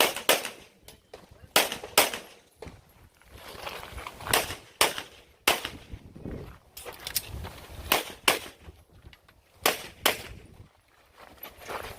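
Semi-automatic pistol shots fired in quick pairs with short pauses between, as a shooter works through a practical-shooting stage.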